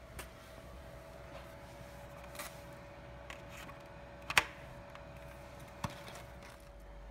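Plastic tube fittings of a Blue Evolution S+ steam vacuum cleaner being handled, with a few light knocks and a sharp double click about four seconds in: the safety hook snapping into place as the connection is pushed home.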